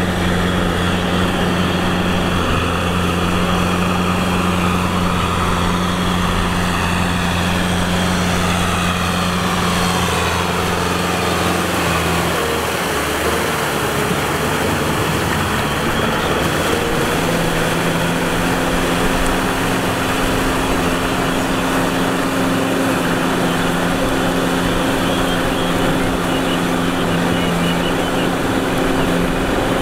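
Tractor diesel engine running steadily under load as it drives a rear rotavator through wet mud; its pitch changes about halfway through.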